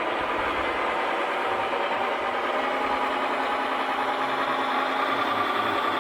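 Scale RC truck's engine sound unit playing a diesel idle through a small speaker, a steady running sound with almost no deep bass. A steady low hum joins in about halfway through.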